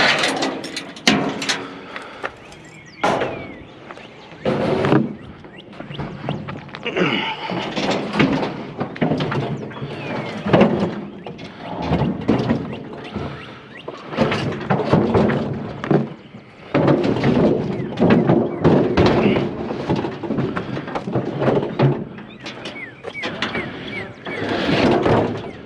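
Repeated thunks and knocks of a discarded refrigerator being wrestled onto a utility trailer, irregular and loud at times.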